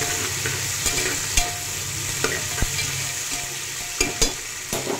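Sliced onions sizzling in hot oil in a pressure cooker as they fry toward light brown, stirred with a metal spatula that scrapes and knocks against the pot several times.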